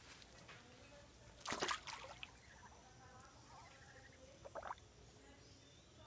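Faint splashing and dabbling of water by Muscovy ducks on a pond, loudest in a short burst about a second and a half in, with a shorter sound near five seconds.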